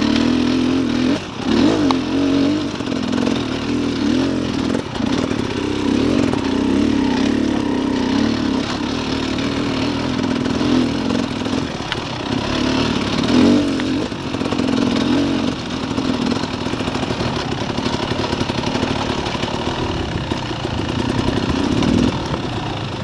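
Dirt bike engine running at low to middle revs while riding a rough trail, the throttle opened and eased off so the revs dip and pick up again several times.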